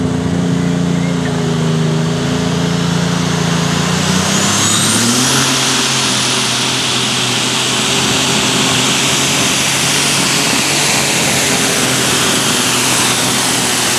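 Turbocharged diesel engine of a Case light super stock pulling tractor running at full power under load. A high turbocharger whine rises about four seconds in and then holds steady.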